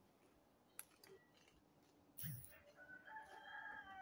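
A rooster crowing faintly: one long crow starting a little past halfway in, just after a brief crunch.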